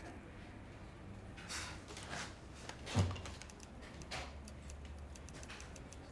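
A few soft knocks and rustles over a low room hum, with one dull thump about three seconds in.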